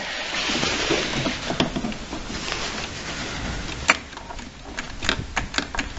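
A sharp click about four seconds in, then a run of lighter clicks over a steady hiss, with no engine cranking. This is the ignition key switch of a Simplicity 16 GTH garden tractor being worked without result: the key switch isn't working.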